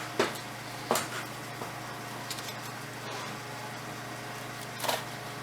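A few light clicks and knocks as the new oil filter cartridge and its housing cap are handled and fitted, over a steady low hum.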